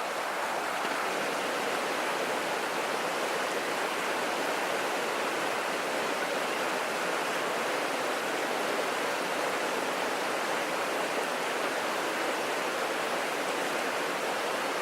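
Mountain creek rushing and splashing over rocks, a steady, even water noise.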